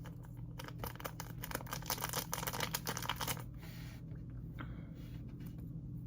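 Crinkling and rustling of small plastic packaging as slime add-ins are handled and put in, densest for about two and a half seconds then thinning to scattered light taps, over a steady low hum.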